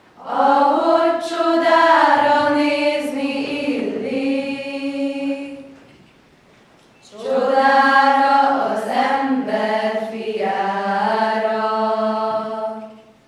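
A mixed group of young voices singing together as a choir in slow, sustained phrases. They sing two long phrases with a pause of about a second between them.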